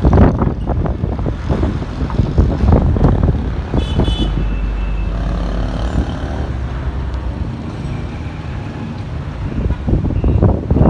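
Storm wind buffeting the microphone in gusts, over road traffic passing, with a brief high-pitched tone about four seconds in.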